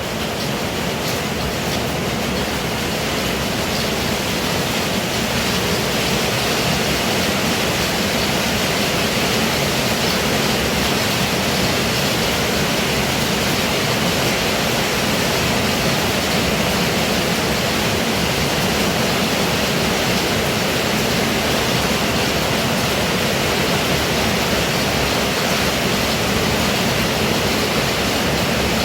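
Heavy rain pouring steadily, growing a little louder over the first few seconds.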